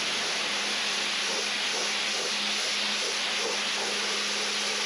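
Pressure washer spraying water at the car's paintwork in a steady hiss, with the washer's motor humming underneath.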